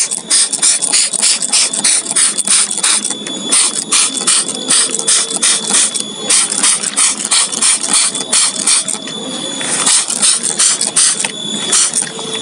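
Hand trigger sprayer squirting liquid fertilizer onto potted rice plants in quick repeated squeezes, about three hissing sprays a second.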